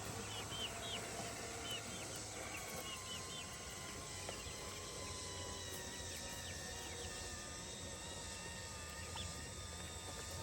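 Electric gear motor of an automatic chicken coop door running steadily for about ten seconds as the door is closed from its manual button, a low hum with a few steady tones over it. Short bird chirps sound over it in the first few seconds.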